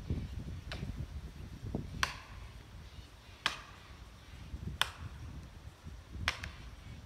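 Five sharp blows, about a second and a half apart, of a hand tool striking at the cut of a dead tree being felled. The first blow is weaker than the rest.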